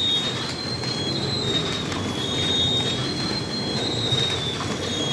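Servo-driven packing machine for IV bottles running, a steady mechanical clatter with a thin high whine that switches back and forth between two close pitches.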